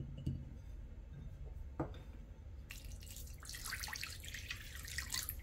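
Water poured from a glass measuring jug into a glass mixing bowl over crumbled fresh yeast, splashing for about two and a half seconds from about halfway in. Before the pour there are light knocks of glassware.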